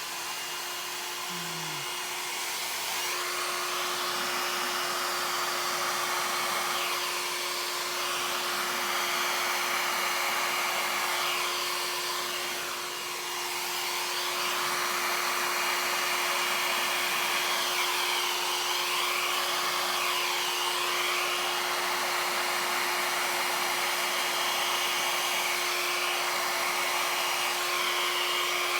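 Mini hair dryer running steadily, a constant rushing hiss with a steady hum, blowing poured acrylic paint outward to form a bloom. It eases off briefly about halfway through, then runs on.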